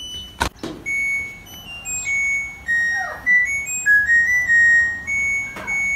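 A simple high tune of clear, held notes that step up and down in pitch, played for the dog to sing along to, with a sharp click about half a second in.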